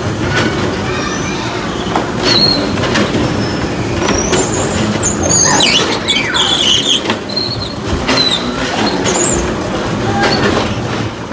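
A constant hubbub of many children playing, with short high-pitched shrieks and squeals rising over it again and again, and a few knocks.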